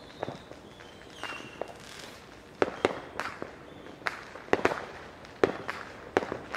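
Neighbourhood fireworks going off: a string of sharp bangs and pops at uneven intervals, sometimes two or three within a second, each with a short echoing tail. The loudest come about two and a half seconds in and again near four and a half seconds.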